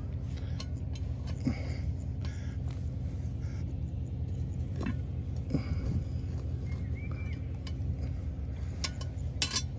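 Metal tongs clicking and charcoal briquettes clinking as hot coals are placed under a cast iron Dutch oven, with a few sharper clacks near the end. A steady low engine hum runs underneath throughout.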